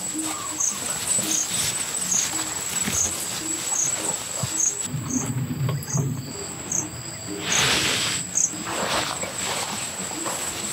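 Insects calling: a steady high whine with a short chirp repeating about every 0.7 s. A brief rustling noise comes about seven and a half seconds in.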